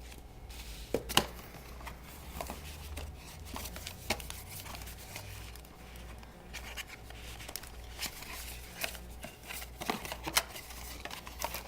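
Paper leaflets and cardboard packaging being handled: rustling and shuffling with scattered taps and clicks, the sharpest a click about a second in.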